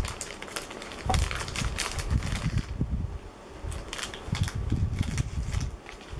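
Crinkly plastic snack packets being handled and torn open by hand, with irregular crackles and rustling.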